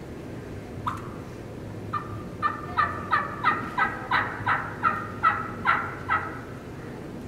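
Plain yelp of a hen turkey imitated on a three-reed diaphragm mouth call. There is a single note about a second in, then a steady run of about eleven yelps, a little under three a second.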